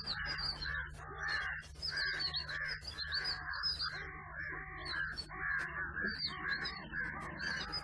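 Many birds calling in a commotion, short crow-like calls repeating several times a second and overlapping, over a steady low hum.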